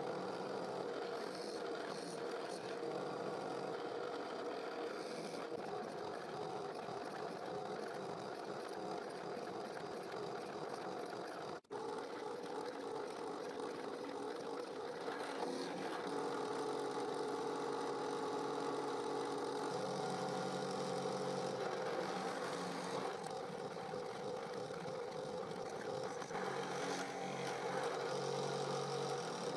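Benchtop drill press running steadily as its 10 mm bit bores a row of holes through wooden strips, with a momentary break about twelve seconds in.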